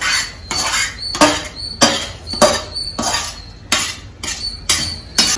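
A metal ladle scraping and knocking against a metal kadai, a little under two sharp clanks a second, as the gravy is scraped out of the pan into a pot of rice.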